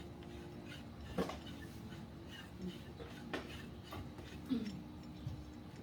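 A few scattered clicks and knocks as a reef LED light fixture and its mounting bracket are handled, over a steady low hum.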